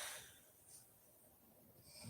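A sleeping woman breathing between snores: a soft exhale fading out over the first half second, then near quiet until the next breath starts to swell near the end.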